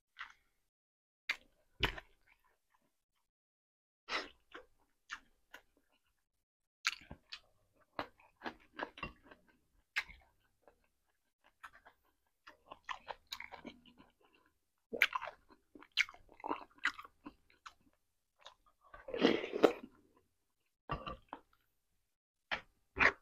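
Close-miked chewing and mouth sounds of a person eating rotisserie chicken and chicken soup: irregular sharp clicks and short bursts with quiet gaps between, the loudest a longer burst lasting about a second, near the end.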